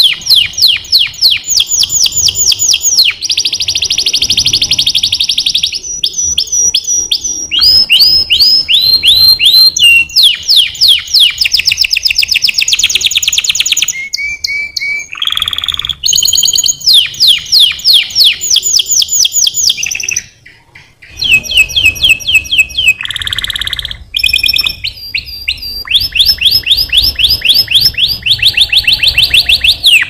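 Domestic canary singing a long, loud song of rapid trills, each phrase a fast run of repeated notes that changes to a new pitch and pattern every second or two, with one short pause about two-thirds of the way through.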